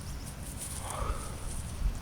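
Outdoor background with wind rumbling on the microphone, and a faint short chirp about halfway through.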